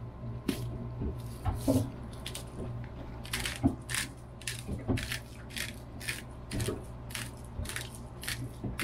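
Salt being dispensed by hand from a salt container over a plastic plate of pasta: a run of short, sharp strokes, about two or three a second.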